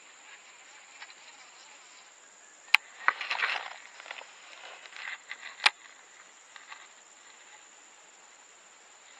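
A cast with a Shimano Metanium baitcasting rod and reel: a sharp click, a short rush of noise as the rod swings and line runs off, and a second sharp click about three seconds later. All of it sits over a steady high-pitched insect drone.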